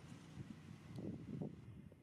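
Faint low rumble of wind on the microphone, swelling about a second in.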